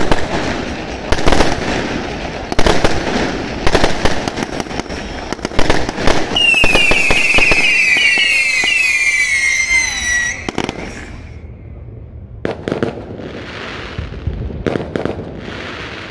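Aerial fireworks shells bursting in rapid, overlapping bangs. About six seconds in, a chorus of shrill whistles glides downward in pitch for some four seconds. After that come fewer, scattered bangs and hissing from rising shells.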